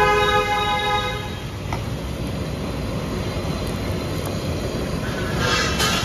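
Steady rumble of road traffic, with a vehicle horn sounding for about a second at the start and a short hiss near the end.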